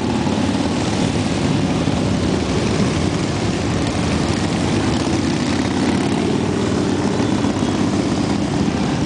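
A long procession of cruiser and touring motorcycles riding past one after another, their engines blending into a loud, steady rumble with no break.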